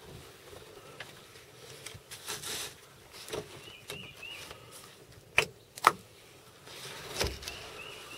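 Quiet outdoor background with soft rustling close to the microphone, then two sharp clicks about half a second apart a little past the middle, the loudest sounds here, typical of handling a gun or gear. Faint high chirps sound twice.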